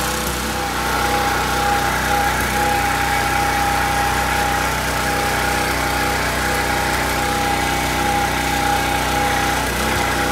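Petrol engine of a Simpson 3200 psi pressure washer running steadily at an even speed.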